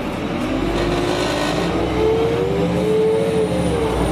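Karosa B951E city bus pulling away, heard from inside: the engine and Voith four-speed automatic gearbox whine, rising steadily in pitch, with a short drop in pitch near the end as the gearbox changes up.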